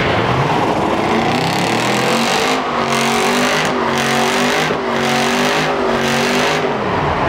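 A car doing a burnout: the engine is held at high revs, its note wavering, while the spinning rear tyres screech through smoke, the screech breaking off briefly about once a second.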